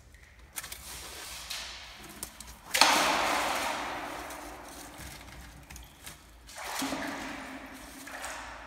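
A fishing magnet on a rope splashing into the water of a well about three seconds in: a sudden rush of noise that trails off over a few seconds. A second, softer swell of noise follows near the end.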